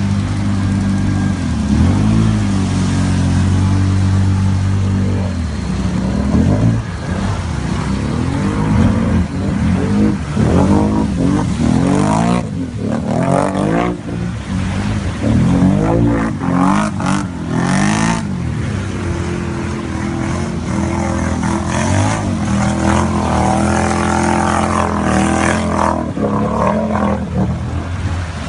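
Can-Am ATV engine revving up and down again and again as it is ridden, then running more steadily near the end.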